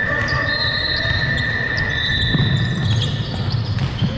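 Basketball game on an indoor court: a ball bouncing, with a steady high-pitched tone held for about three seconds from the start, then fading out.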